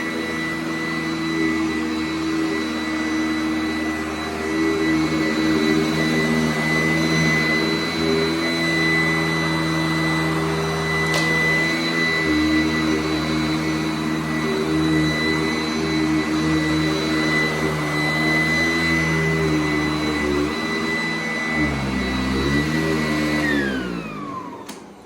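Sanitaire S675 upright vacuum cleaner running with a steady high whine over a lower hum, then switched off near the end, its motor pitch gliding down as it spins down.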